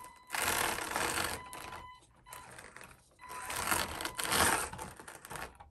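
Small RC crawler's 51-turn brushed electric motor and geared drivetrain whirring in two short bursts of throttle, one near the start and one about three seconds in, as the truck strains on a steep rock face at low speed; it won't slow crawl the obstacle.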